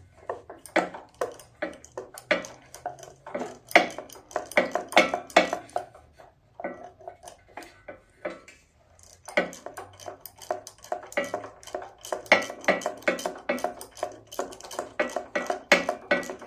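Metal hand tools clicking and clinking as a 5/8 spark plug socket and extension are fitted and worked on a small engine's spark plug: many quick irregular clicks, easing off for a few seconds midway.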